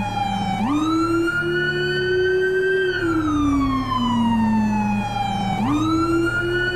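Police car siren wailing: a slow wail that sinks in pitch, then sweeps quickly back up and sinks again, twice, over a steady low hum.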